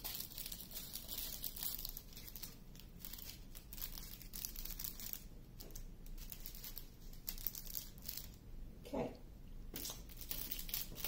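Small plastic bags of diamond painting drills crinkling and rustling as they are handled, a run of light crackles.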